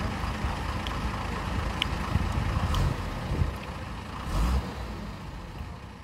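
Diesel engines of a Mahindra SX90 backhoe loader and a loaded dump truck running steadily. A few sharp metallic clicks come around two and three seconds in, and there is a brief louder surge about four seconds in.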